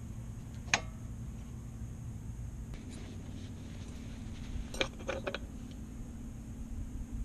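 Hard metal clinks: one sharp ringing clink about a second in, then a quick cluster of clinks around five seconds in, over a steady low hum.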